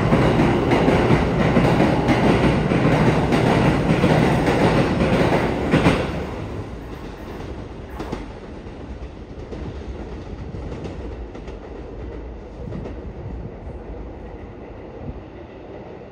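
A Keikyu electric train pulls out along the platform, its wheels clattering over the rail joints. The rumble is loud for about six seconds, then drops away suddenly to a faint rumble and a few clicks as the train draws off down the line.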